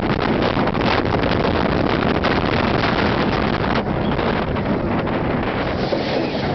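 Steady wind rushing over the microphone as the Goliath steel roller coaster train runs at speed, mixed with the rumble of the train on its track.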